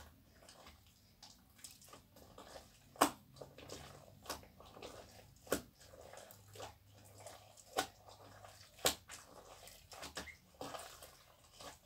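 Watery slime being kneaded by hand in a plastic bowl: faint squelching with about five sharp wet pops spread through.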